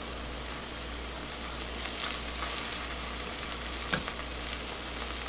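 Half-set beaten eggs sizzling gently in melted margarine in a rectangular egg-roll pan over a low gas flame, while a silicone spatula stirs them; a light knock about four seconds in.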